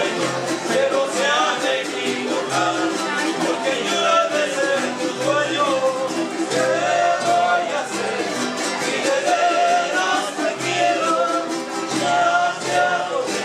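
Live son jarocho music: a harp and small strummed guitars playing a lively tune while men sing.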